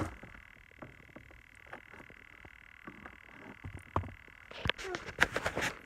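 Plastic clicks and knocks of the Tech 2 diagnostic cable's connector being handled and pushed into the vehicle's diagnostic port under the dashboard, with a quick run of louder clicks near the end.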